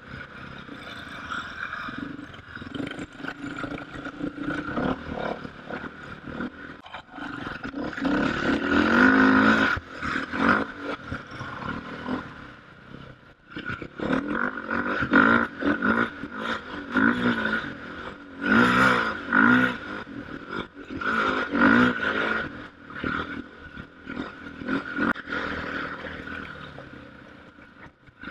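KTM off-road motorcycle engine revving up and falling back again and again, with frequent knocks and clatter from the bike over rough ground. The hardest revs come about nine seconds in and again near the middle.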